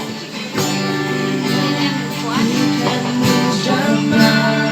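Music: a worship song with strummed acoustic guitar, in an instrumental break between sung lines.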